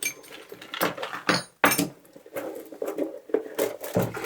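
Metal hand tools clinking and clattering in a run of short, irregular knocks as they are tipped out of a tool roll's inner tube.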